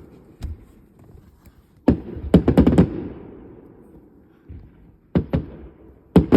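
Fireworks bursting in quick succession, with no pause between them. A single bang comes about half a second in, then a volley of five or six bangs around two to three seconds, two more near five seconds, and another volley starting at the end, each bang followed by a rumbling echo.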